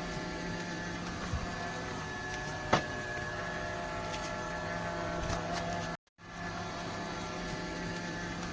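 Robot vacuum cleaner running with a steady motor hum and a sharp click about three seconds in. The sound drops out briefly about six seconds in, then the same hum resumes.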